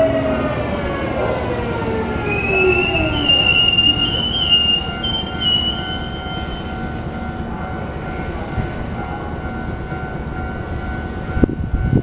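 Hankyu electric train moving off: its motor tone falls in pitch over the first few seconds. Then the wheels squeal high against the rails for about four seconds, and the train sound settles to a steady background. A few low knocks come near the end.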